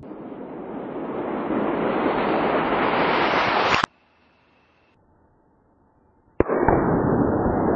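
Explosion of an exploding target set on a tree stump: a sharp blast about six seconds in, followed by a long loud rumble. Before it, a rushing blast noise swells for several seconds, then cuts off abruptly into near silence.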